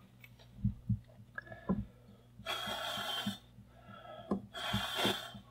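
Two short puffs of breath blown at a sound sensor's microphone, each a hiss of under a second, about two seconds apart. A few faint knocks come before them.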